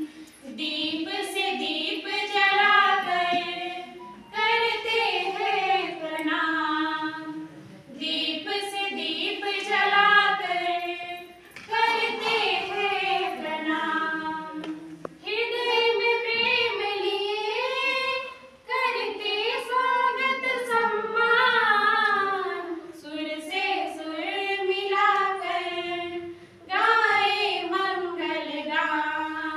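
A small group of young women singing together without accompaniment, in sung phrases of three to four seconds with short breaks for breath between them.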